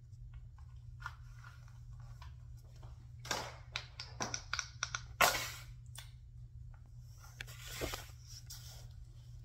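Small plastic fidget toys being handled: scattered light clicks and rustles, with two louder noisy bursts about three and five seconds in, over a low steady hum.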